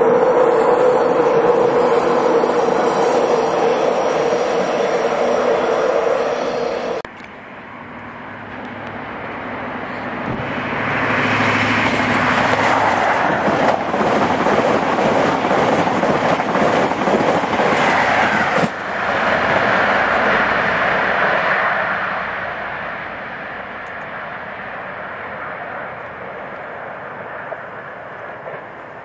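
A High Speed Train's diesel power car approaching, with a steady engine drone. Then, after a sudden cut, a long rake of passenger coaches passes close by at speed: the rush of wheels and air rises, stays loud for about ten seconds and fades away.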